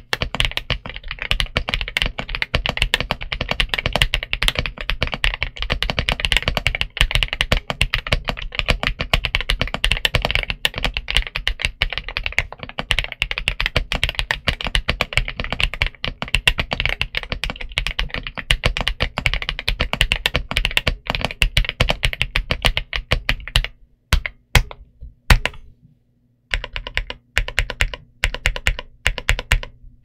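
Royal Kludge R75 mechanical keyboard with RK Cream/Chartreuse linear switches and PBT Cherry-profile keycaps being typed on fast and continuously. Near the end the typing stops, a few single keys are struck, and then slower, sparser keystrokes follow.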